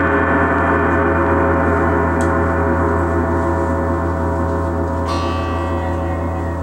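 Large hanging gongs, one a Paiste, ringing in a dense, shimmering wash of overlapping tones that slowly dies away. About five seconds in, a brighter, higher ringing joins it.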